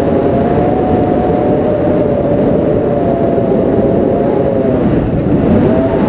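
Loud, steady wind rush from the air of a tandem paraglider's flight buffeting the camera microphone, with a faint wavering whistle.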